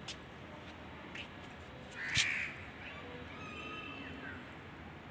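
A crow gives one harsh caw about two seconds in, followed by a fainter drawn-out pitched call.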